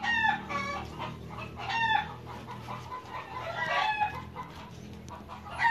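Short, high-pitched animal cries, about five of them spaced irregularly, each with a slight rise and fall in pitch, over a faint steady low hum.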